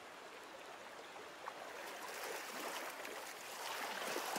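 Steady flowing river water, growing louder about halfway through.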